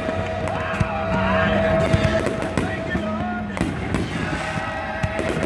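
Aerial firework shells bursting in separate sharp bangs, a few seconds apart, over patriotic music with singing from a PA loudspeaker.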